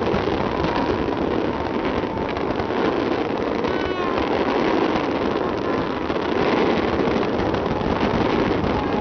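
Large fireworks display heard as a continuous rumble with crackle as many shells fire and burst at once, mixed with the noise of a big crowd. A short whistle rises through it about four seconds in.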